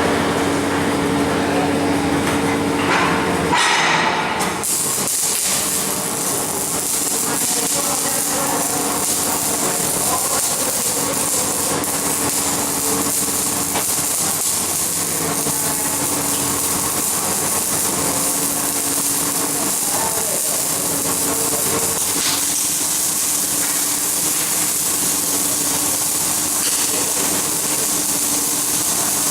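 Electric arc welding: a steady hissing crackle from the arc that strengthens about four seconds in, over a faint machine hum that comes and goes.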